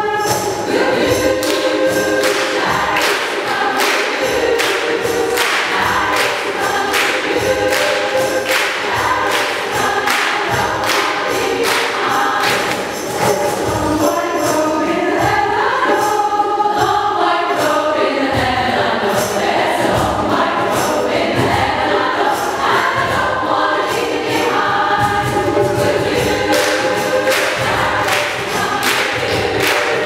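Mixed community choir singing in parts, accompanied by a steady percussive beat.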